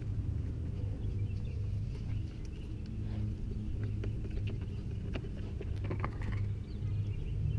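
Scattered clicks and knocks of a car door's interior panel and parts being refitted by hand, over a steady low hum.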